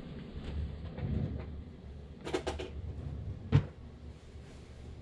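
Handling noise from a handheld camera moving low over the floor: a steady low rumble, a quick run of three clicks about two seconds in, and one sharp thump a second later.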